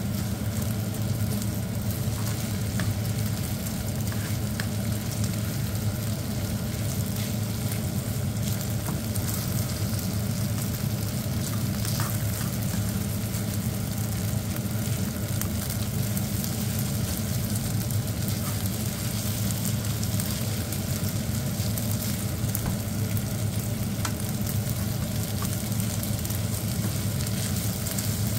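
Egg fried rice sizzling in a frying pan as it is stirred and turned with a nylon turner, with a few light scrapes and taps of the turner on the pan, over a steady low hum.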